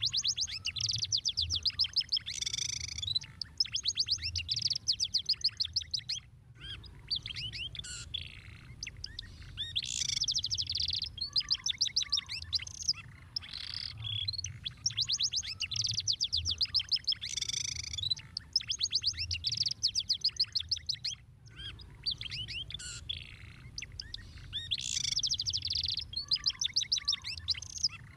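Domestic canary singing a long, fast song of rapid trills and rolling runs of repeated high notes, with two brief pauses.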